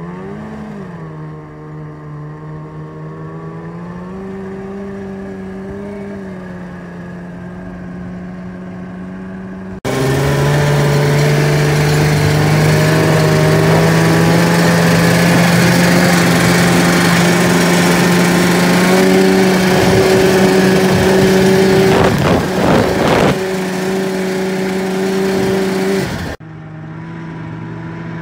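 Arctic Cat snowmobile engine running, its pitch rising and settling as the throttle changes. About ten seconds in it becomes much louder, with a rush of wind over the microphone as the sled speeds across the snow, easing back about two seconds before the end.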